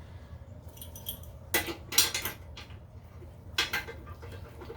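A few short metallic clinks of a wrench on the toilet's tank-to-bowl bolts and nuts as they are tightened, the loudest about two seconds in.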